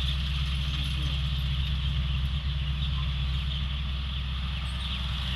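Combine harvester running steadily: a low, even engine drone with a steady high hiss over it.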